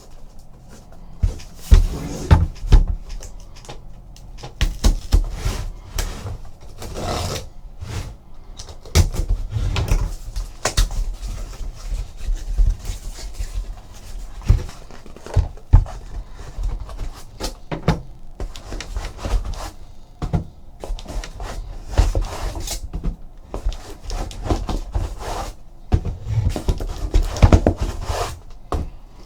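Cardboard being handled: a run of knocks, thuds and rustling as a sealed case of trading card boxes is opened and the boxes are taken out and set down.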